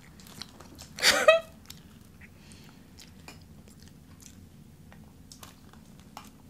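Close-up eating sounds as two people eat strawberry shortcake and ice cream: soft chewing and small mouth and spoon clicks, with one brief loud mouth sound about a second in.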